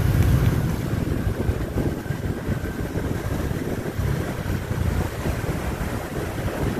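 Wind buffeting the microphone on a moving motorbike, with the rumble of the motorbike's engine and surrounding street traffic underneath. The sound is steady, easing slightly in loudness after about a second.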